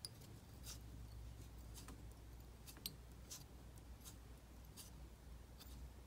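Faint, irregular small ticks and rustles of tying thread being wrapped from a bobbin around a jig head held in a fly-tying vise, about ten soft clicks spread unevenly over a low steady hum.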